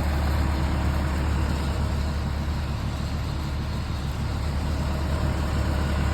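Concrete pump truck's diesel engine running steadily, a constant low drone as it pumps concrete through the hose during the pour.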